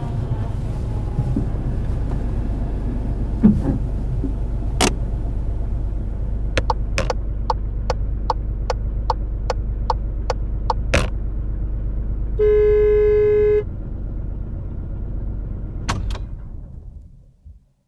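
Volkswagen Polo 6 idling with a steady low rumble, with a couple of sharp clicks and then the turn-signal indicator ticking about twice a second. Near the end a single horn honk of about a second sounds, and the engine sound then fades out.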